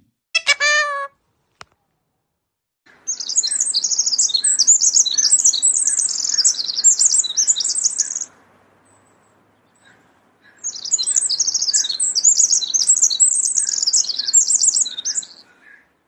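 Wren singing two long bouts of its rapid, high trilling song, each about five seconds, with a pause between. A short falling call sounds under a second in.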